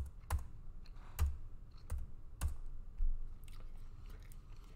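Computer keyboard keystrokes: about half a dozen separate, unevenly spaced key presses, each a sharp click with a low thump, while a spreadsheet formula is typed in.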